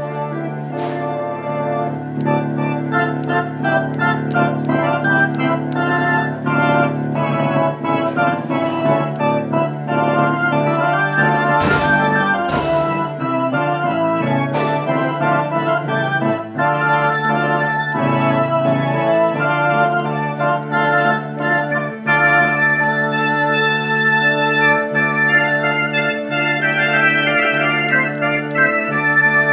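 Theatre organ playing a Christmas carol: sustained chords over a steady held bass, with a few sharp percussive taps around the middle.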